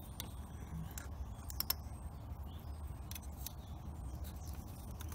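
Sharp plastic and metal clicks of pliers and injector wiring plugs being worked on the engine, a handful at irregular intervals, the loudest a quick double click about a second and a half in, over a low steady hum.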